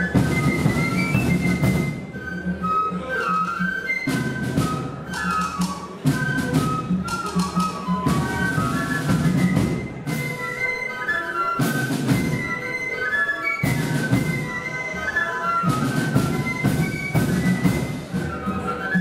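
Melody flute band playing a tune, the flutes carrying a quick melody in unison over a lower part and sharp drum strikes.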